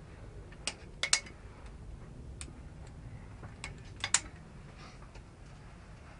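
Via ferrata carabiners clinking against each other and the steel cable: several sharp metallic clicks, bunched in two clusters about three seconds apart.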